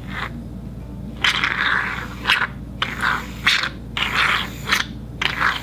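A series of about eight short, scratchy scraping strokes, each lasting under a second, with brief gaps between them.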